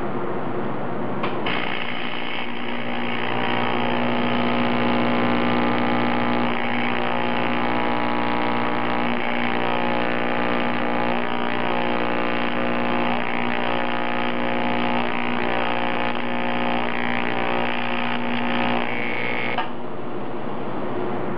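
AC TIG welding arc on aluminium, fusing a bracket tab onto an aluminium intercooler pipe: a steady electric buzz that strikes up about a second in and cuts off suddenly shortly before the end.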